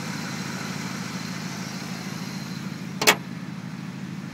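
Supercharged 5.4 L V8 of a 2001 Ford SVT Lightning pickup idling steadily. About three seconds in, the truck's hood slams shut with one sharp bang.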